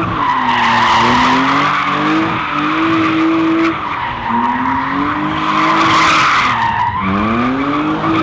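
A car doing donuts, its tyres squealing steadily on the asphalt while the engine revs rise and fall under load. About seven seconds in, the revs drop briefly and then climb sharply again.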